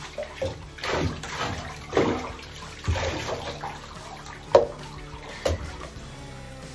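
Water splashing and sloshing in a bathtub during a small dog's bath, in uneven bursts, with two sharp knocks about a second apart near the end.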